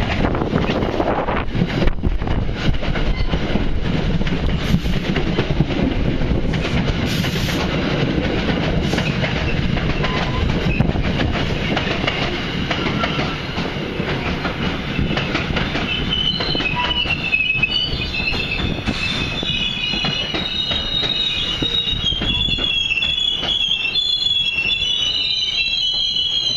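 Multilevel commuter train rolling in alongside the platform: a loud rumble of wheels with clicks over the rail joints. From about two-thirds through, several wavering high-pitched wheel squeals set in as it slows, and the rumble dies away toward the end.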